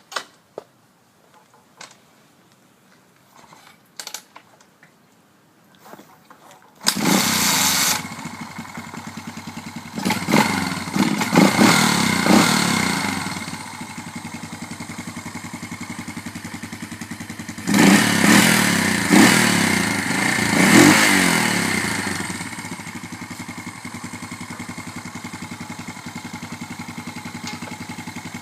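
Freshly rebuilt Honda TR200 Fat Cat's single-cylinder four-stroke engine on a cold start: a few sharp knocks, then about seven seconds in it fires and runs. It is revved twice and settles into a steady idle.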